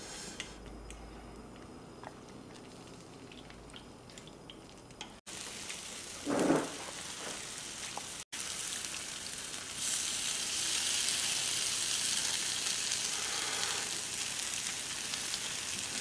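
Pork belly and kimchi sizzling on a grill pan, faint at first and growing louder and steadier about ten seconds in. One brief louder sound comes about six and a half seconds in.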